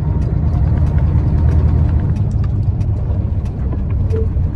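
Heavy truck's diesel engine running steadily under way, a low even drone heard from inside the cab, with faint scattered clicks over it.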